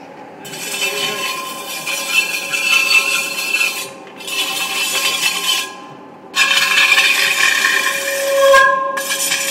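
Scraping and rubbing of a tool against an aluminium wheel rim on a rim repair machine, in stretches of a few seconds broken by short pauses, with a faint steady squeal in it.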